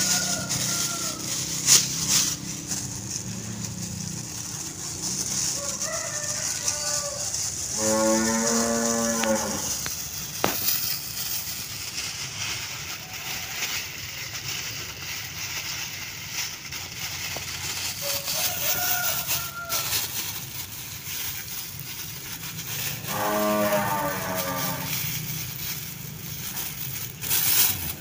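A cow mooing twice, each call about a second and a half long and some fifteen seconds apart.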